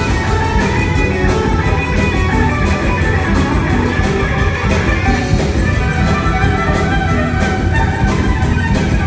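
Live jazz-fusion band playing, electric guitars over a steady drum beat, loud and continuous.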